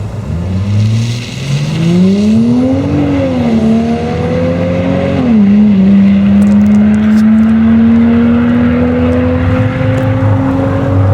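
Holden VP Commodore accelerating flat out from a standing start, revs climbing, with the automatic transmission shifting up twice, about three and five and a half seconds in, each shift dropping the revs. After the second shift the engine pulls steadily with slowly rising revs.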